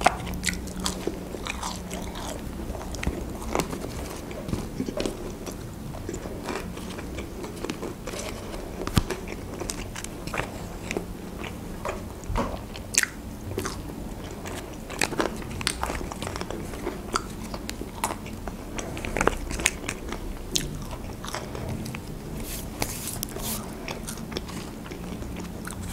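A person chewing and biting thin McDonald's french fries, with many short, irregular mouth clicks and smacks.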